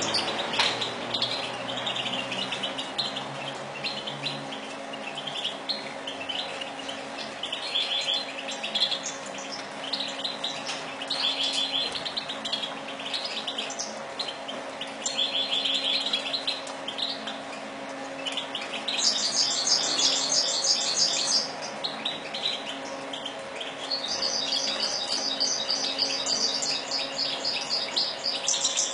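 Goldfinch singing: a long run of twittering chirp phrases, breaking into fast, higher trills about two-thirds of the way through and again near the end, over a steady low hum.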